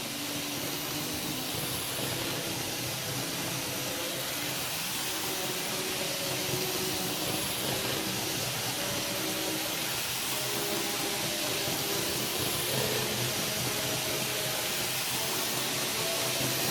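Model U50 eight-axle locomotive running laps at speed on tight sectional-track curves: a steady hiss of wheels rolling on the rails with a faint wavering motor whine, growing slightly louder.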